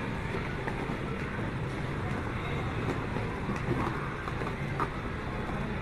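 Steady, even background din of a busy indoor play area, heaviest in the low end, with a few faint clicks.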